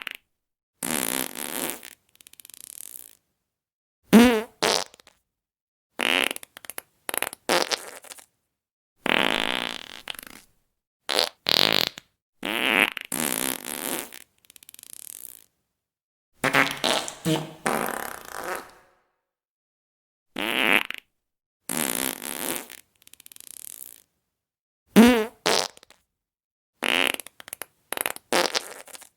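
A string of about twenty separate fart sound effects, one after another with short silent gaps between. They run from a fraction of a second to about two seconds each, some with a buzzing, wavering pitch and others airy and hissing.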